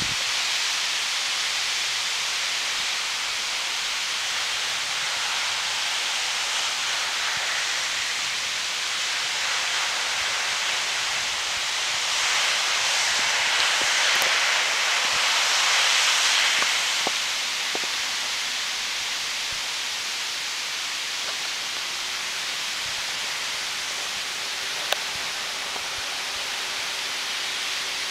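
Steady hissing wash of lake water moving through slush and floating ice along the shore, swelling for a few seconds about halfway through. One short click late on.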